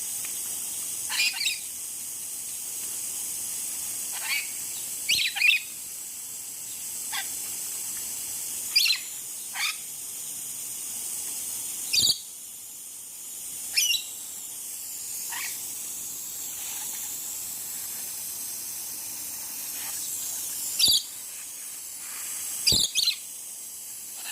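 Pet lorikeets giving short, sharp screeching calls every second or two, each sliding down in pitch, over a steady hiss of spraying water from their bath.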